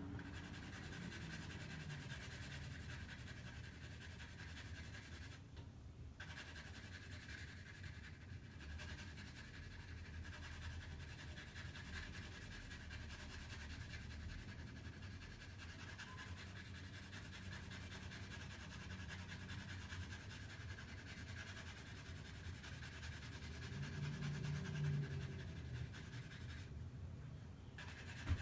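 HB graphite pencil scratching on paper in shading strokes, over a faint steady hum, with one sharp click right at the end.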